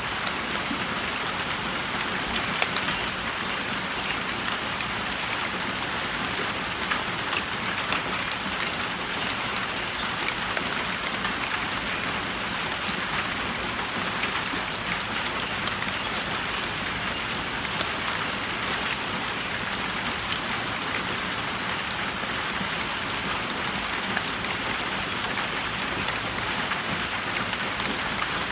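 Steady rain falling on a tin roof and on three balloons: a dense, even patter with scattered louder single-drop taps, one of the loudest about two and a half seconds in.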